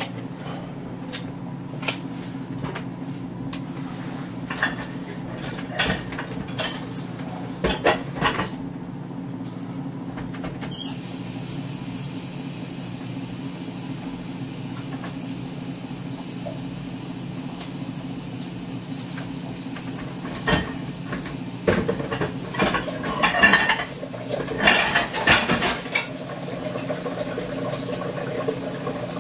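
Dishes and cutlery clinking and clattering off and on in a kitchen, busiest and loudest in the last third, over a steady low hum.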